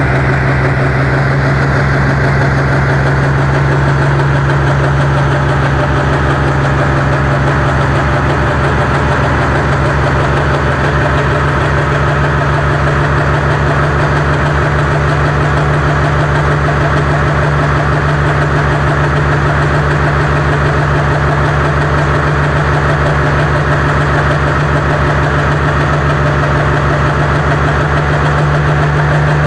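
Diesel engine of a modified pulling tractor idling steadily and loudly through its open vertical exhaust stack, blowing thick dark smoke.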